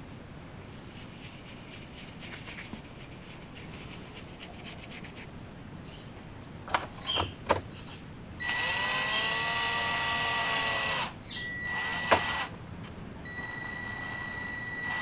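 A small electric motor whines steadily in three runs: a long one of about two and a half seconds and two shorter ones near the end. Before it come faint scratching and a few sharp clicks.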